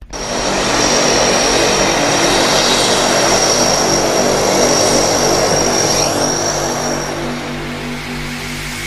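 Aircraft engine running loud on an airfield runway: a rushing engine noise with a steady high turbine whine, the whine dying away near the end as the sound eases a little.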